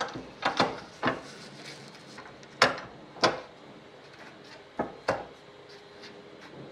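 Thin 0.016-inch aluminium sheet being bent into a flange by hand over a steel bar clamped to a workbench: about eight sharp clicks and knocks at uneven intervals, the loudest a little before halfway.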